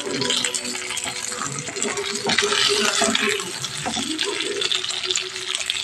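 Fish steaks sizzling and crackling in hot oil in a frying pan.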